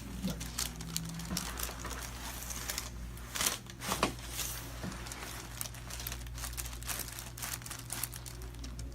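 Irregular crinkling and rustling with many small clicks as a patient shifts on a chiropractic treatment table, a little louder about three and a half and four seconds in, over a steady low hum.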